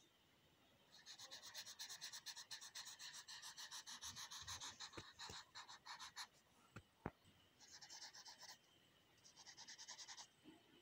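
Faint, rapid back-and-forth scratching of a crayon shading a solid black area on paper. A long run of strokes starts about a second in, followed by two shorter runs near the end and a few light taps.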